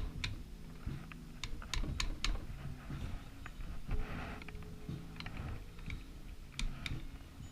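A pry tool clicking and tapping against a motorcycle engine's crankcase as a glued-on oil pump cover is gently pried loose: irregular light clicks, with a short scrape about four seconds in.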